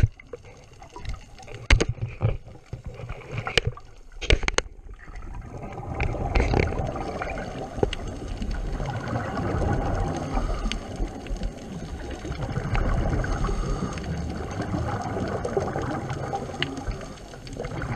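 Underwater scuba sound: a few sharp clicks and knocks in the first few seconds, then the rushing, gurgling noise of a diver's regulator exhaust bubbles, swelling and fading every few seconds.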